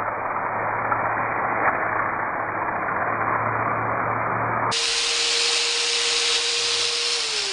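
A power tool with a wire wheel scrubbing rusty sheet metal, a steady abrasive noise with a low motor hum. After a cut the tool runs with a steady whine that drops in pitch near the end as it spins down.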